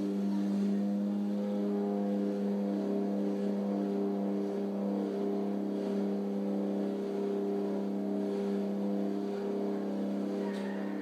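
A jump plane's propeller engine droning steadily, heard from inside the cabin: an even, unchanging hum with a strong low tone and a stack of overtones.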